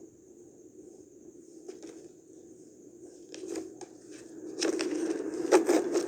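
Handling noise: a few faint clicks, then from about two-thirds of the way through, a louder run of clicks and rustling as things are handled.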